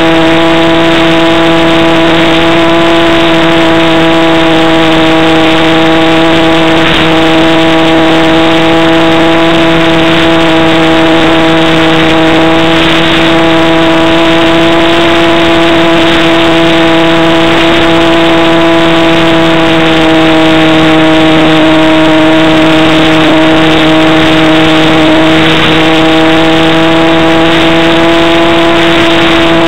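Motor and propeller of a radio-controlled model Cessna in flight, a loud, steady droning hum held at one pitch with only slight wavering.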